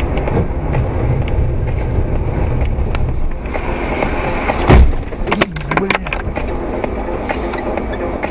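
Steady road and engine rumble heard from inside a moving car on a dashcam. About four and a half seconds in there is one loud thump, the loudest sound here, followed by a quick run of sharp knocks and clicks.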